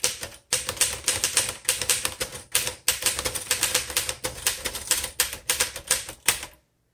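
1928 Royal 10 manual upright typewriter being typed on quickly: a fast, uneven run of key strikes that stops near the end.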